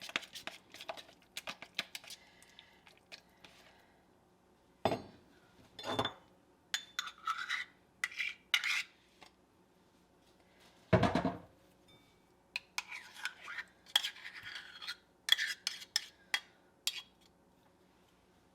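A spoon and measuring cup clinking and scraping against a bowl as thick Greek yogurt is scooped and measured out, with a few louder knocks about five, six and eleven seconds in.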